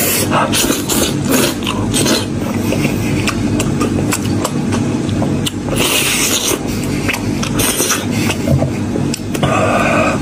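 Close-miked eating sounds: a person pulls apart spicy braised head meat by hand, bites and sucks meat off a bone, and chews, with many small wet clicks and scrapes. There are short hissy slurps about six and eight seconds in and again near the end, over a steady low hum.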